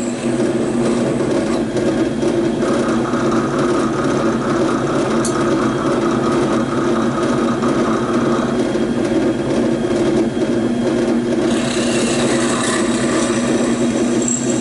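Electric drill motor running steadily while drilling holes in a plastic battery tray. Its pitch holds steady, with a brighter band from about 2.5 to 8.5 seconds in, as the bit cuts.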